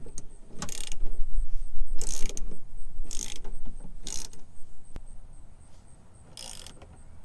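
Hand ratchet wrench clicking in about five short runs as it is swung back and forth, loosening the bolts that hold a racing seat's rails to the car floor.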